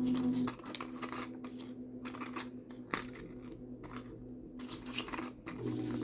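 Small hard objects clicking and rattling as they are handled, over a low steady hum.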